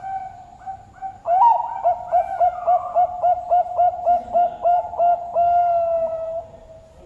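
Zebra dove (Bangkok perkutut) singing: a few short opening coos, then a quick even run of about a dozen coos, roughly three a second, ending in one long drawn-out note near the end.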